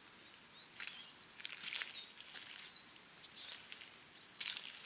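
Small birds chirping and calling in short, quick notes, over a faint steady outdoor hiss.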